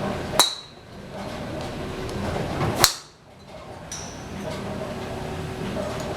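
Golf driver striking balls: two sharp metallic clicks with a brief high ring, about two and a half seconds apart, then a fainter one about four seconds in.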